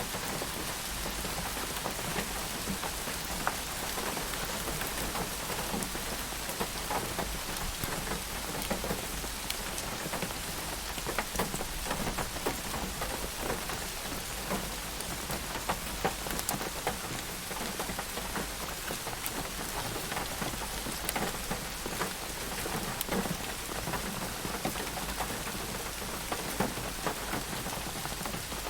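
Steady rain falling, with many individual drops ticking and pattering close by on a surface.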